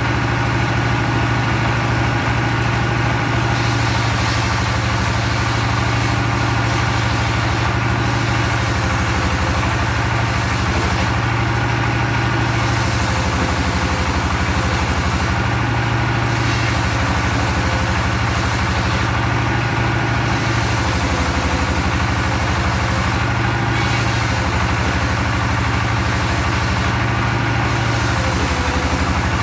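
Engine-driven circular log saw running steadily, a constant engine drone under a high hiss that briefly drops away about every four seconds.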